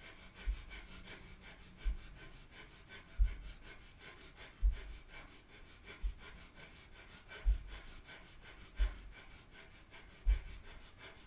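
Breath of fire: rapid, even, forceful breaths pumped through the nose. A soft low thump comes about every second and a half.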